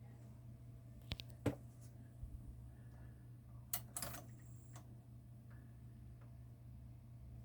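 Akai GX-9 cassette deck's controls and transport mechanism clicking and clunking as it is operated, five or so sharp clicks in the first five seconds, over a low steady hum. The mechanism is untested and due for new belts.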